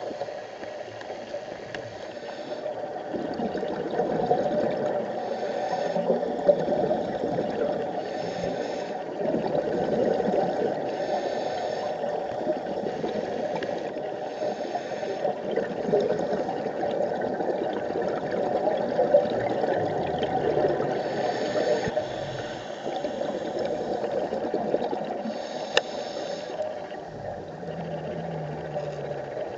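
Muffled underwater sound picked up through a camera housing, with a scuba diver's regulator breathing and bubbling exhalations recurring every few seconds.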